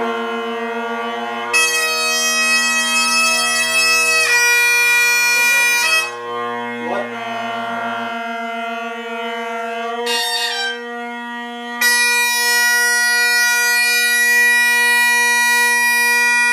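Great Highland bagpipes striking in: the drones start all at once, with chanter notes over them from about a second and a half in. The pitch wavers around six to eight seconds in and the bass drone drops out, leaving the tenor drones under a long held chanter note near the end.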